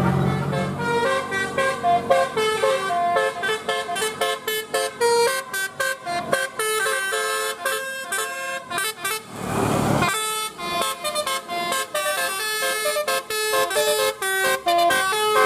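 Bus telolet basuri horn playing a quick tune of short stepped notes, with a brief rush of noise about nine and a half seconds in.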